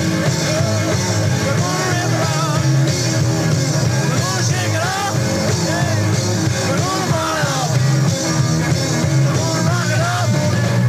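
A live rock band playing an up-tempo rock'n'roll number, recorded straight off the mixing desk. The sound is loud and continuous, with electric guitars, bass and some singing.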